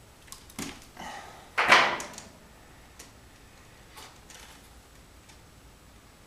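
A red-handled wire stripper snipping and stripping hook-up wire, with sharp clicks, a louder scraping rustle about two seconds in, then a couple of faint handling clicks.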